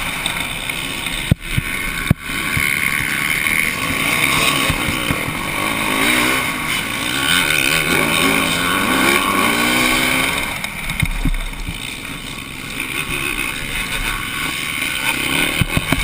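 Motocross bike's engine heard from the rider's helmet camera, revving up and down under hard riding, with two sudden jolts a little over a second in and about two seconds in.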